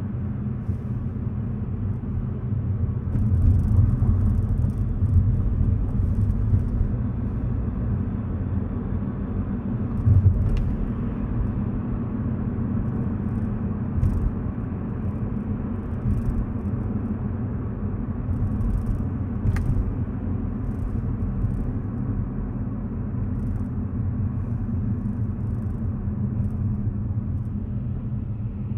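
A car driving along a road: a steady low rumble of tyres and engine, with a brief louder bump about ten seconds in and a faint click or two.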